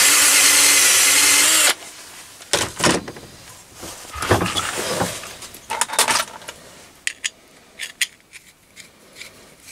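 Cordless drill running an M8 × 1.25 combination drill-tap bit in 3 mm aluminium angle for under two seconds, cutting a thread, then cutting off suddenly. Knocks, a scrape and light metallic clinks follow as the drill is put down and the aluminium angle is handled.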